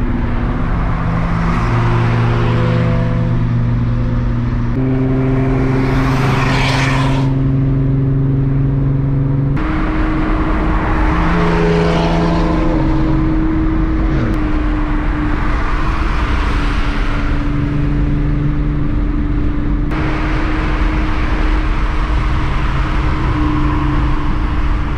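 Cabin sound of a VR6-swapped Mk3 Volkswagen cruising at motorway speed: a steady engine drone under road and wind noise. Other cars swell past alongside, most strongly about a quarter of the way in.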